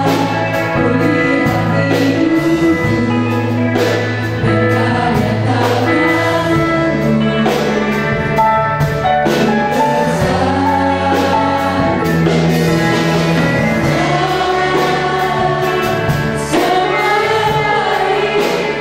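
Live gospel worship song through a PA: a woman sings an impassioned lead vocal, with women's backing vocals and sustained keyboard chords underneath.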